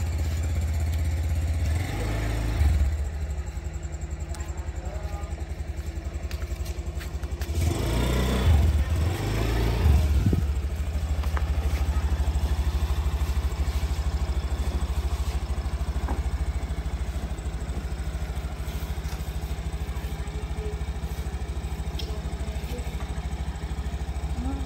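Honda Scoopy motor scooter's small single-cylinder engine idling steadily, with a couple of brief louder surges, one about two seconds in and one around eight to ten seconds in.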